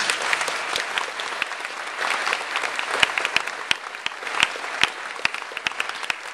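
A crowd applauding: many hands clapping in a dense patter, with sharper single claps standing out close by.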